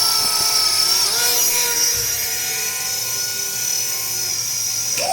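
Flynova UFO flying spinner toy in flight, its small electric propeller motors whirring with a steady high-pitched whine. The pitch shifts slightly about a second in.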